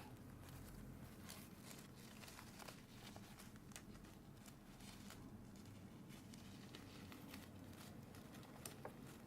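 Faint, scattered rustles and light clicks of a disposable self-heating eye mask being handled and fitted on, over a low steady room hum.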